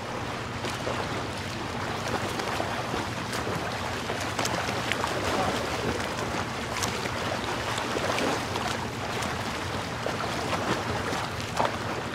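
Ocean ambience: a steady rush of water with a low hum underneath and scattered faint crackles.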